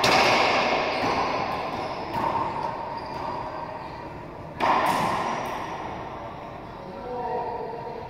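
Racquetball rally: the hard rubber ball cracking off racquets and the court walls, each hit ringing out with a long echo in the enclosed court. The loudest hits come about two seconds in and about four and a half seconds in.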